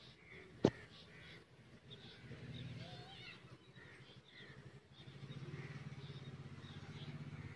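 Birds calling in the background, crows cawing among them, over a low steady hum that swells about two seconds in and again about five seconds in. A single sharp click just under a second in.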